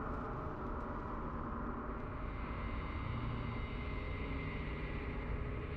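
Steady low drone with many held tones layered together. It neither rises nor falls and has no distinct knocks or hits.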